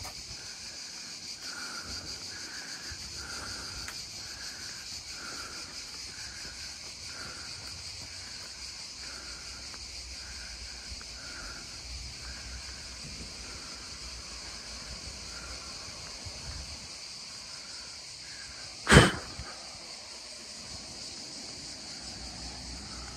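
Steady high buzzing of cicadas, with a softer chirp repeating about once a second. Late on, a single sharp knock stands out as the loudest sound.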